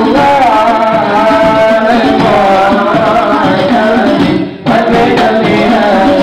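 A male voice sings a sholawat (Islamic devotional song) through a microphone in long, melismatic lines, over hand drums keeping a steady rhythm. The sound cuts out for a fraction of a second about four seconds in.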